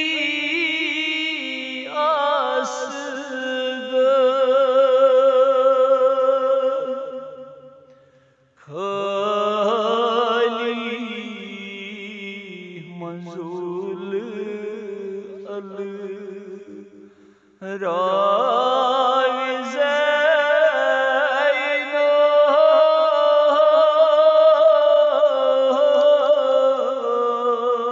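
Male noha reciter singing a Shia lament in long, wavering held notes. The singing comes in three sustained phrases, each fading out, with breaks about 8 and 17 seconds in.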